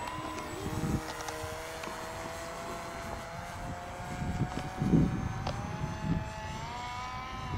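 Electric motor and pusher propeller of an FX-79 Buffalo flying wing droning in flight as it climbs, a steady whine that rises in pitch near the end. Low gusts of wind on the microphone about a second in and again about five seconds in.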